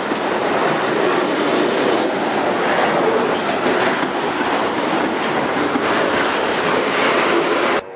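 Freight train of autorack cars rolling past close by: steady rumble and rattle of steel wheels on rail, with clicks over the rail joints. The sound cuts off suddenly near the end.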